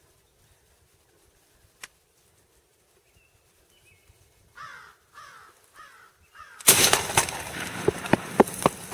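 A bird calls four times in a series of falling notes. About two-thirds of the way in comes a sudden loud shotgun blast, followed by loud rustling and a run of sharp knocks to the end.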